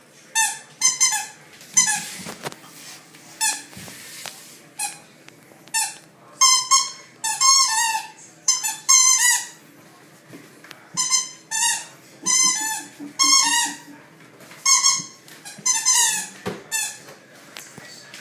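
Squeaky toy football being bitten and chewed by a West Highland white terrier: short, high, shrill squeaks in quick runs of two to five, over and over with brief pauses.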